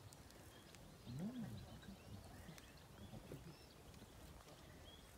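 A llama humming once, about a second in: a short, low, nasal hum that rises and then falls in pitch, with a few fainter hums after it, over near silence.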